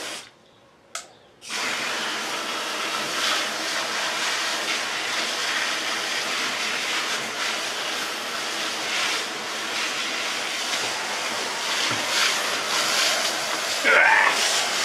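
Water jet spraying steadily against a steel wheel rim, rinsing sprayed-on cleaner and brake dust off it; it starts about a second and a half in. A brief louder rising sound comes near the end.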